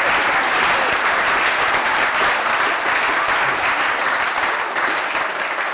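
A group of people applauding: dense, steady hand-clapping that eases off slightly near the end.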